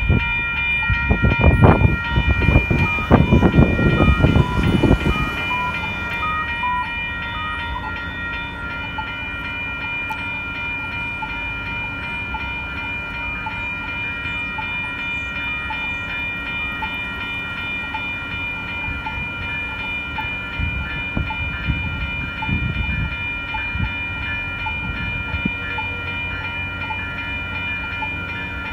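Railroad crossing warning bells ringing steadily at an active crossing. A passing vehicle's loud low rumble is heard under them for the first few seconds.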